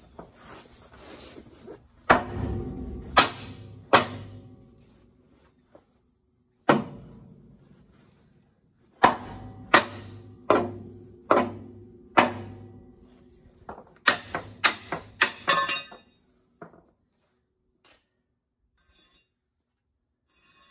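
Sledgehammer blows on the steel pedestal tie bar of a Budd RDC railcar truck, knocking the bar out of the pedestals: about fourteen sharp metal-on-metal strikes, each with a short ring, spaced unevenly and ending in a quick run of five.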